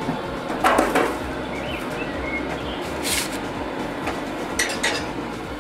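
Baking pans being set into a running pellet grill: a few short knocks and clatters of metal trays over the grill's steady background noise.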